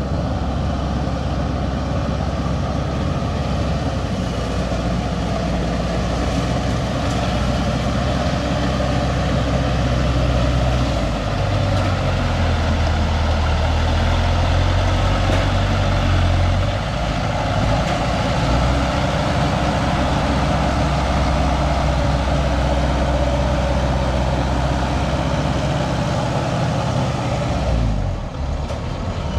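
Engine of a tracked rice carrier loaded with grain sacks, running steadily as the carrier crawls through mud. The engine's deep note is strongest for several seconds in the middle.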